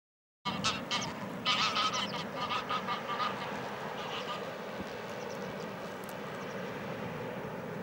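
Brief dead silence, then a flurry of short waterfowl calls, several a second, for about four seconds, which give way to a steady background hiss.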